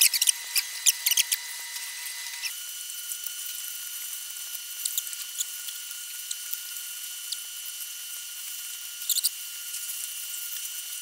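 Thin, tinny eating sounds: a quick run of sharp clicks of a metal spoon and chopsticks against a ceramic plate in the first second or so, then a few scattered smaller clicks. Under them runs a steady high-pitched whine that jumps higher about two and a half seconds in.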